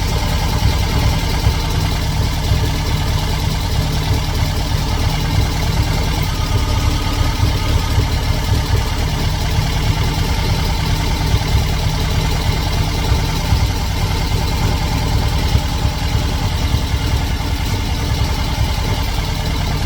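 A carbureted 2110cc air-cooled VW flat-four engine idling steadily, freshly installed and nearly finished, with only a little carburetor tuning left to do.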